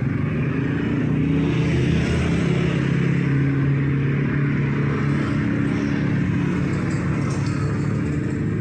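Street traffic: a motor vehicle's engine running close by with a steady low hum over continuous road noise.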